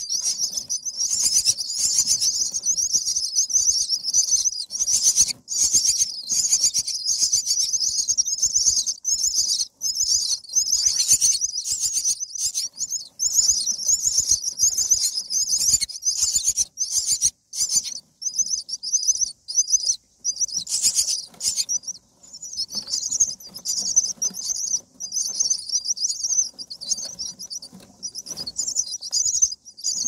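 Common myna nestlings begging to be fed: a dense, high-pitched chorus of rapid, continuous calls. Near the end it breaks into shorter, separate bursts, over faint rustling of the nest straw.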